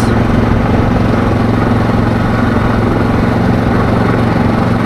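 ATV engine running at a steady, unchanging speed while riding, a constant low drone with tyre and wind noise under it.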